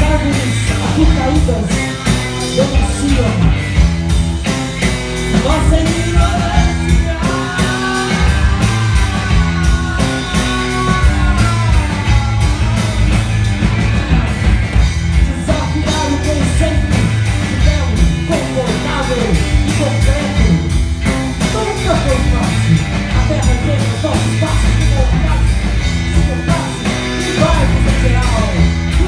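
Rock band playing loud music throughout, with a steady beat and heavy bass. A wavering, sustained melody line rises above it from about six to twelve seconds in.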